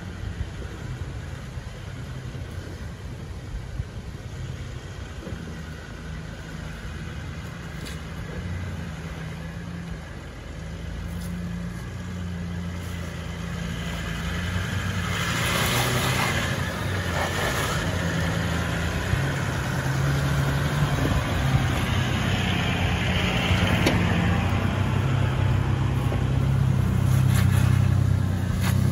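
Toyota LandCruiser 76 and 80 four-wheel drives crawling over a rocky track in low gear, their engines running at low revs. The engine drone grows louder as the vehicles come close, with a few knocks mixed in.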